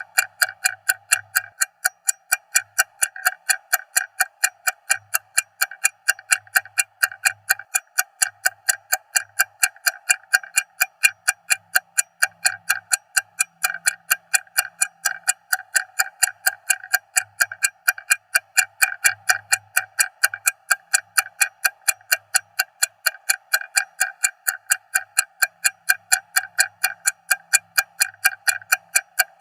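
Stopwatch ticking: a fast, even run of sharp ticks, several a second, that never changes pace.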